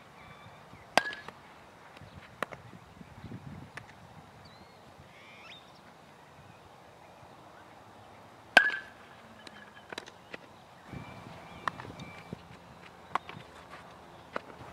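Fielding practice: two sharp cracks of a bat hitting baseballs, one about a second in and one past the middle, each with a brief ringing tone. Between them come lighter pops and clicks of balls being caught in gloves.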